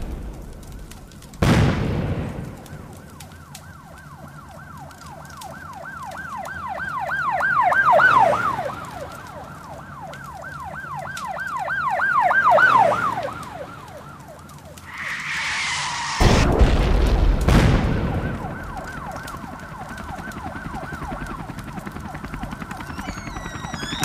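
Disaster sound effects: a boom about a second and a half in, then a quickly wavering emergency-vehicle siren that swells and fades away twice, over a steady high tone. Near the middle a rushing hiss leads into a second, louder boom that dies away slowly.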